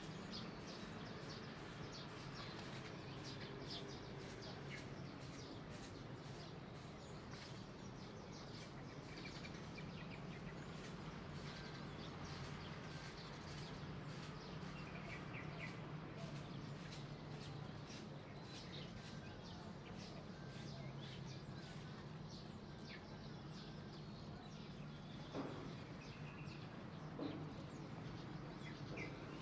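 Outdoor ambience of scattered bird chirps over a rapid, regular high-pitched pulsing of about two a second and a low steady hum, with two short knocks near the end.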